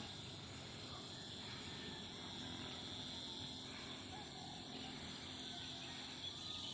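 Insect chorus: a steady, high-pitched buzzing that does not change.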